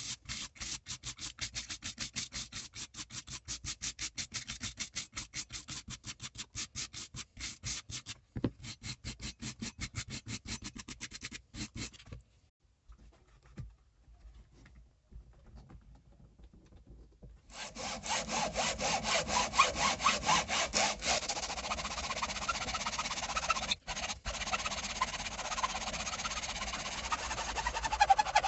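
Brass-bristled hand wire brush scrubbing soft, rotten wood in fast, even strokes, stopping about twelve seconds in. After a quiet stretch with a few small knocks, a hacksaw starts cutting through the clamped wood in back-and-forth strokes, louder than the brushing.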